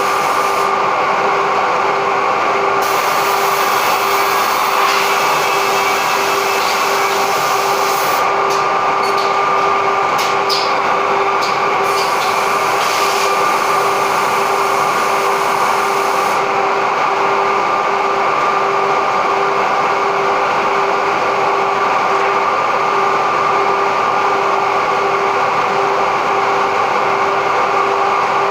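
Automatic edge banding machine running steadily with a constant whine, with a spell of added hissing and short clicks between about 3 and 16 seconds in.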